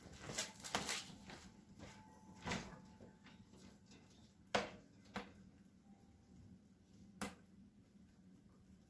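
Wood fire crackling in a small cast-iron wood-burning stove, with a few sharp, irregular pops, the loudest about halfway through.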